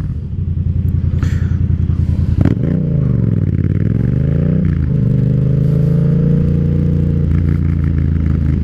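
Yamaha MT-07's parallel-twin engine running under way. A sharp knock comes about two and a half seconds in, then the revs fall and rise again over about two seconds before holding steady.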